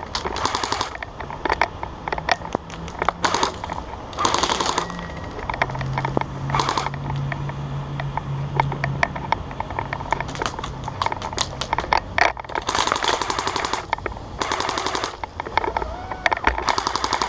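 Airsoft guns firing: repeated rapid full-auto bursts, each about half a second to a second long, with scattered single shots in between.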